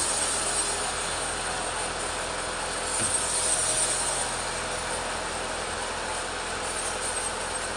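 Petrol chainsaw running steadily under load, ripping lengthwise through a teak log.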